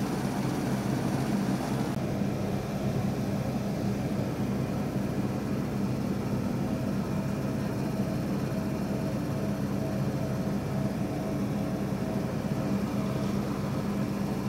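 A steady low mechanical hum with a few steady low tones under it, of the kind a ventilation fan or air-conditioning unit makes. The higher hiss eases slightly about two seconds in.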